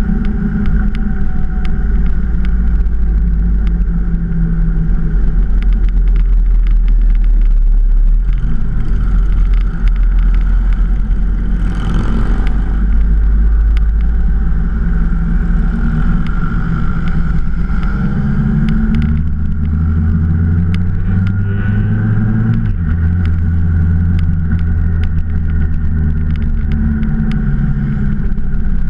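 Motorcycle engine running steadily while riding, the engine note stepping up in pitch about twenty seconds in and dropping back a few seconds later. A brief rushing noise comes about twelve seconds in.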